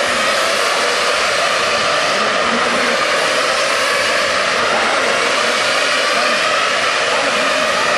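A steady, loud whirring hiss of a small high-revving motor, holding an even pitch with no rises or falls.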